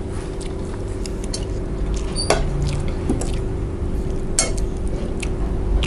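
Forks and spoons clinking and scraping against plates as food is served and eaten, with a few sharp clinks, the loudest about two and four and a half seconds in. A steady low hum runs underneath.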